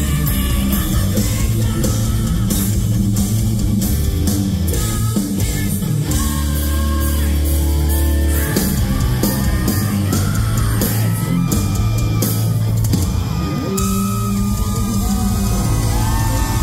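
Live hard rock band playing at full volume: electric guitar, bass guitar and drums, with a male lead singer's vocals over the top.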